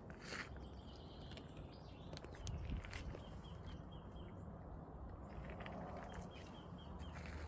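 Faint outdoor natural ambience: birds chirping in short runs of high notes, with scattered small clicks and rustles over a low rumble.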